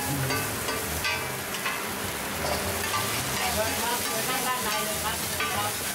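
Egg and oysters sizzling in hot oil on a wide flat pan, while steel tongs and a metal ladle scrape and clack against the pan, breaking up and turning the omelet. The sizzle is steady and the utensil clicks and scrapes come irregularly throughout.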